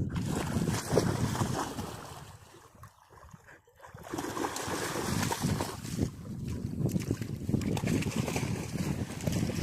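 Wind buffeting the microphone, with water sloshing and splashing. The sound drops away briefly about three seconds in, then comes back.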